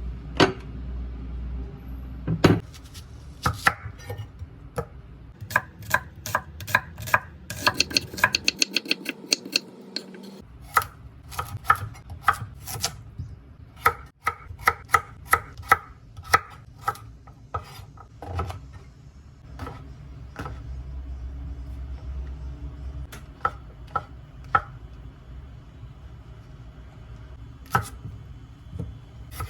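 Knife chopping on a cutting board: separate strokes at an uneven pace, with a quick run of rapid chops about eight seconds in.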